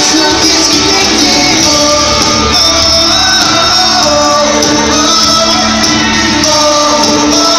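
Pop-punk band playing live at full volume in a large arena, with electric guitars, bass, drums and sung vocals, heard from the audience with the hall's echo.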